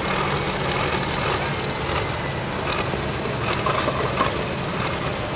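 A Ford farm pulling tractor's engine idling steadily while hooked to the sled, a low, even rumble.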